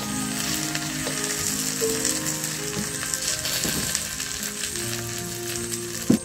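Chicken legs in thick masala sizzling in a wok over wood embers while a metal spatula scrapes and scoops through them, with one sharp clank of metal about six seconds in. Soft background music plays underneath.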